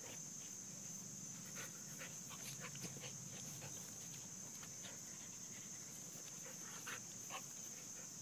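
Two dogs play-fighting on grass, a puppy and a larger adult dog, heard faintly as scattered soft scuffs and breaths over a steady high hiss.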